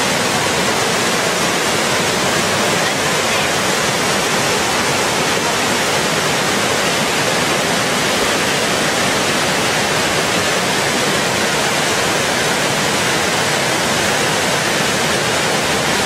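The Probiy waterfall on the Prut river crashing over rock ledges: a loud, steady rush of falling water.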